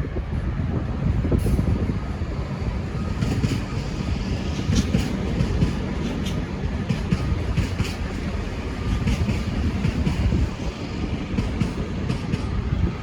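V/Line VLocity diesel multiple unit rolling past on the rails with a steady low rumble, and scattered light clicks from the wheels.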